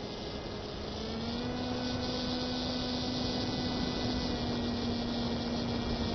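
Model airplane's motor droning in flight over a steady hiss. Its pitch steps up a little about a second in and then holds, as the throttle is opened slightly.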